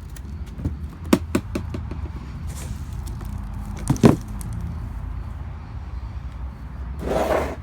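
Sharp clicks and knocks of a hard guitar case being handled and its latches worked, the loudest knock about four seconds in, then a brief rustle near the end, over a steady low hum.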